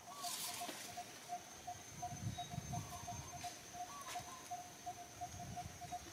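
Outdoor background sounds: a bird repeats a short note about three times a second over a steady high insect-like drone. There is a brief rustle near the start and some soft low thumps around the middle.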